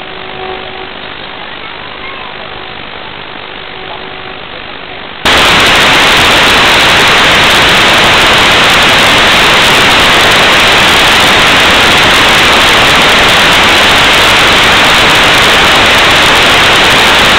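Loud, steady static hiss from an analog FPV video receiver that has lost the drone's signal, cutting in suddenly about five seconds in. Before it comes a quieter, muffled background with a faint steady hum.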